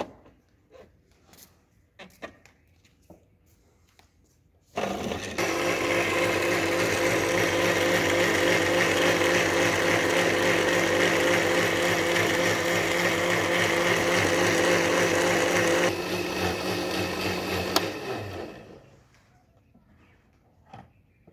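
Electric countertop blender blending a green mint-and-lemon drink. It switches on about five seconds in, runs steadily and loudly for about eleven seconds, drops slightly, then winds down and stops a couple of seconds before the end.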